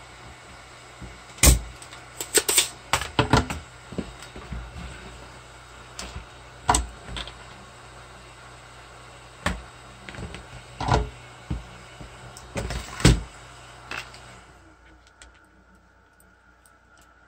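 Scattered sharp clicks and knocks of tools and parts being handled during electronics bench work, at irregular intervals. They sit over a steady hiss and hum that switches off about fourteen seconds in, after which only faint clicks remain.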